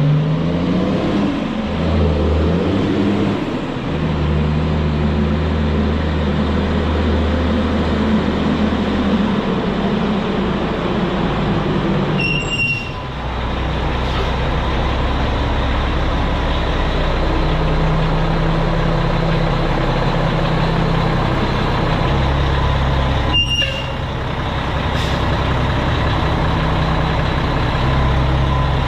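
Mack truck's diesel engine running at low speed while the truck is manoeuvred, its pitch stepping up and down several times. Two brief, sharp sounds cut in, one about halfway through and one near the end.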